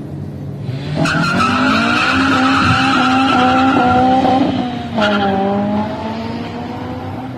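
2018 Honda City's 1.5-litre four-cylinder engine accelerating hard. Its pitch climbs steadily for a few seconds, drops suddenly at a shift about five seconds in, then starts climbing again.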